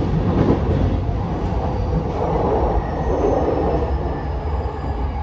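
E233-5000 series electric train running, heard from inside the car: steady wheel and rail rumble, with faint high whines from its Mitsubishi IGBT-VVVF traction inverter falling slightly in pitch in the second half.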